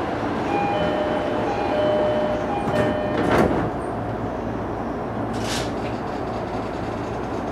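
Two-tone door chime of an E233 series commuter train repeating for about three seconds, then a thud at about 3.4 seconds as the sliding doors shut, and a short hiss of air about two seconds later, over the steady hum of the stopped train.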